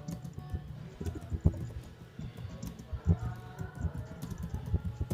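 Fast, irregular keystrokes on a computer keyboard that is typed on beneath a cloth cover. The typing stops abruptly at the very end.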